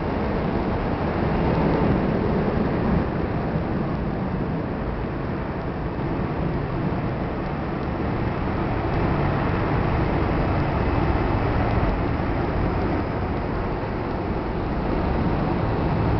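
Distant jet engine noise from an airliner on the runway, a steady rumble.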